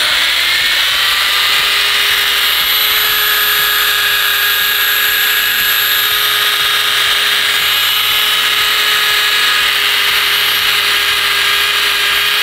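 Electric pipe belt sander running an abrasive band against metal intake piping to clean it. It spins up at the start, then runs with a steady high whine.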